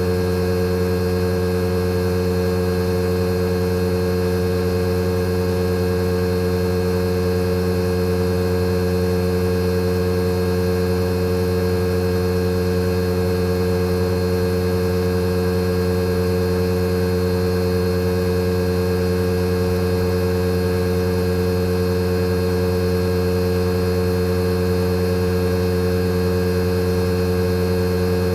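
Fujitsu General AO-C28H inverter air-conditioner outdoor unit running its compressor during defrost operation: a steady hum made of several fixed tones, the strongest a mid-pitched whine, holding level throughout.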